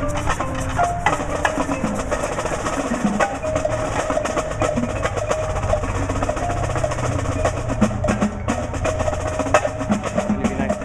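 Percussion ensemble playing: a dense stream of quick drum strokes and sharp wood-block-like clicks under short pitched melodic notes.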